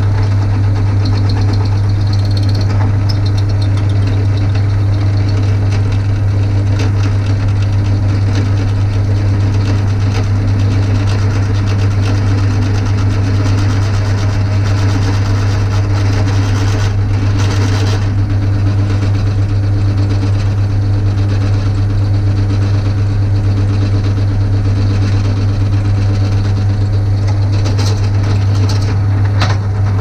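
Bench drill press motor running steadily with a strong low hum while a small pilot hole is drilled through a rod for a split pin. The motor cuts off at the very end.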